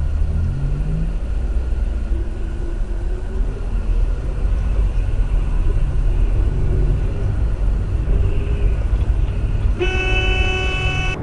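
Steady low road and engine rumble inside a moving car. Near the end, a car horn blares for about a second and a half.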